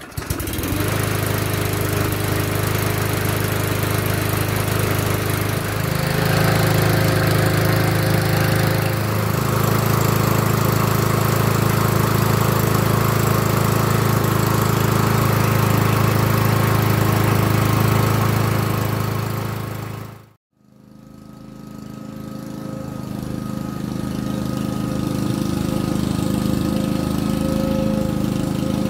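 Troy-Bilt TB150T XP walk-behind lawnmower's 163cc single-cylinder engine catching right at the start and running steadily. The sound drops out for a moment about twenty seconds in, then the engine runs on.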